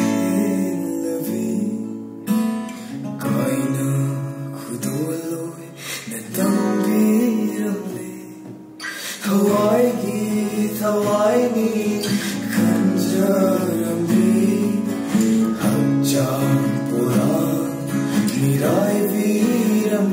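Acoustic guitars strummed and picked as accompaniment to a man singing a slow song, with a short thinning of the playing about two seconds in and again near the middle before the full accompaniment comes back in.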